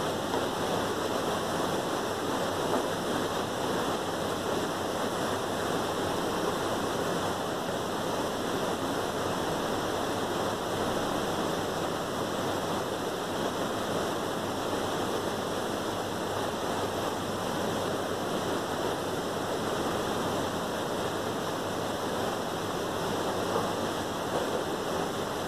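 Mutton karahi curry sizzling steadily in its oil in the karahi pan: the tomato masala, fried until the oil has separated, bubbles and spits as it cooks.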